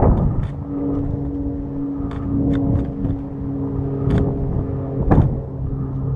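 A steady engine hum starts about half a second in, with a few sharp cracks of airsoft gunfire spaced irregularly through it.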